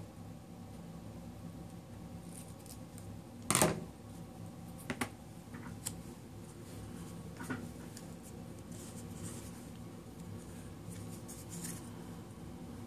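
Duct tape being handled and stuck onto a cardboard tape-roll core: a few short crackles and clicks, the loudest about three and a half seconds in, over a faint steady hum.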